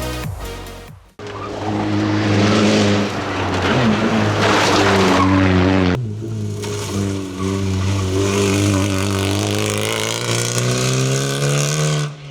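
Fiat Egea 1.4 T-Jet rally car's turbocharged four-cylinder engine at racing revs, with heavy tyre and road noise, in shots cut together. Near the end the engine pitch climbs steadily as the car accelerates hard.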